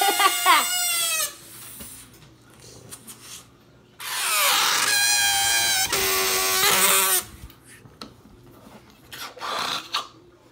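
Air squealing out of a rubber balloon through its pinched, stretched neck: a pitched, wavering squeal that slides down and stops about a second in. A second, longer squeal runs for about three seconds in the middle. A short breathy rush comes near the end as the balloon is blown into.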